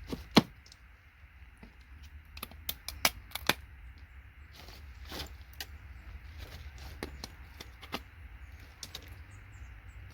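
Scattered sharp clicks and clinks of electronic components being snapped off a circuit board and dropped, the loudest just under half a second in and a quick cluster around three seconds in.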